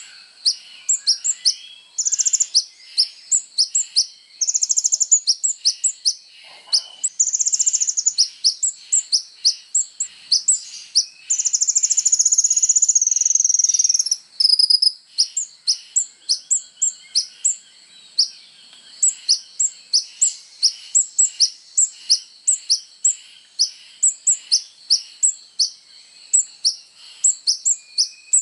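Kolibri ninja sunbird singing energetically: a fast run of very high, sharp chirps, about three a second, broken by several high buzzing trills, the longest lasting about two and a half seconds around the middle.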